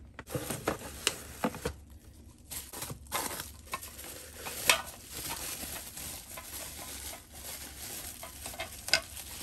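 Bubble wrap crinkling and rustling as a wrapped part is handled and lifted out of a cardboard box: a run of irregular small crackles, with a sharper crackle about halfway and another near the end.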